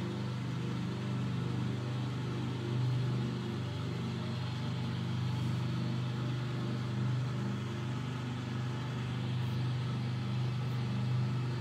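Motor-driven etching press running steadily, its motor giving a low, even hum as the felt-covered bed is drawn under the steel roller.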